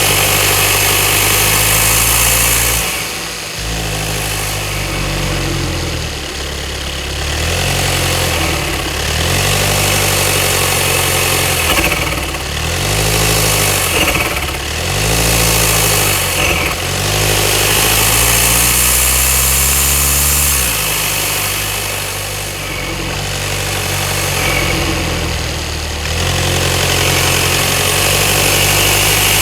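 VW Golf 7 GTD's 2.0 TDI diesel engine (engine code DGCA) heard from inside the engine bay, blipped repeatedly and let fall back to idle. As the revs drop off the throttle there is an intermittent rasping rattle ('Schnarren'), which the owner suspects may come from the turbocharger wastegate, a belt idler or tensioner pulley, or the water pump.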